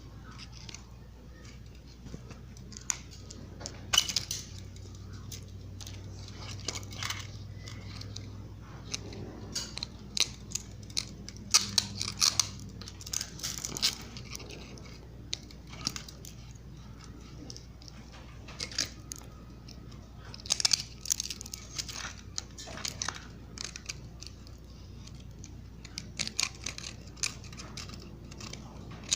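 Needle-nose pliers gripping and twisting stiff galvanized steel wire: irregular metallic clicks and scrapes in scattered clusters.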